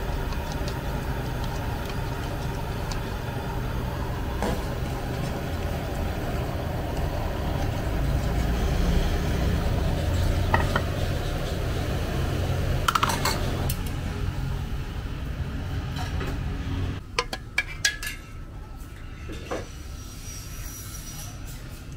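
Metal ladle stirring a wok of broth thickened with tapioca starch, clinking against the wok and bowl a few times, over a steady low rumble. About seventeen seconds in the rumble stops and a few more sharp clinks follow.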